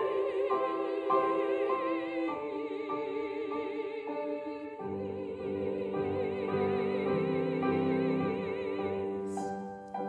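A small women's choir singing with vibrato over piano accompaniment that repeats notes about twice a second. Deeper, fuller chords come in about halfway. Near the end the voices fade out and the piano carries on alone.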